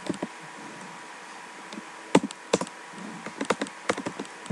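Typing on a computer keyboard: a couple of keystrokes at the start, a pause of almost two seconds, then an uneven run of keystrokes in the second half.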